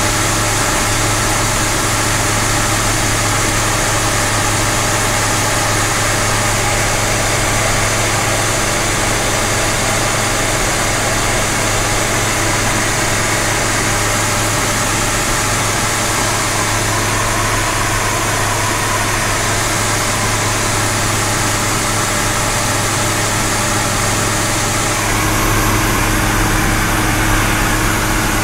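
Light aircraft's piston engine and propeller droning steadily, heard from inside the cockpit. The drone grows slightly louder about 25 seconds in.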